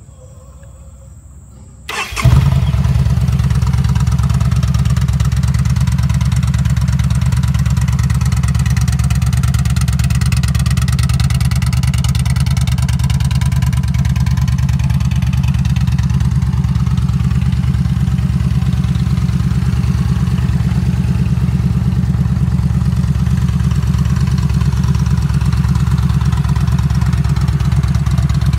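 Yamaha V-Star 950's V-twin engine, breathing through Vance & Hines slip-on mufflers, starts with a short crank about two seconds in, catches and settles into a steady idle.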